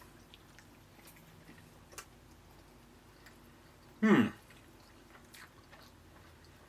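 A man chewing a bite of a double bacon burger, with faint wet mouth clicks. About four seconds in, a short hum from him that falls in pitch.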